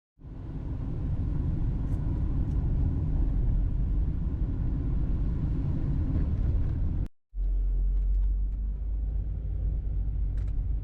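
Car road noise: a steady low rumble, cut off abruptly about seven seconds in and then starting again.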